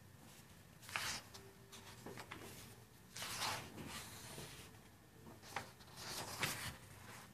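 Sheets of printed paper rustling as a stack of handouts is leafed through, in several short rustles.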